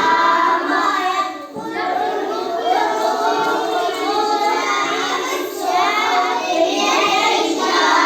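Children's voices singing a song together.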